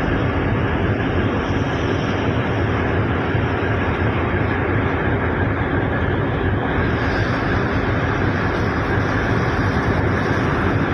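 Steady noise of a boat under way: engine drone mixed with wind and rushing water.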